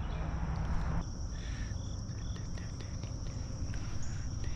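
Insects keep up a steady high-pitched chorus, with a few short chirps in the middle, over a low steady rumble.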